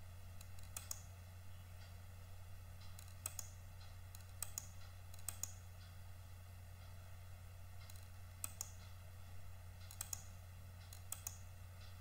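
Faint computer mouse clicks, a dozen or so at uneven intervals, several in quick pairs, over a steady low hum.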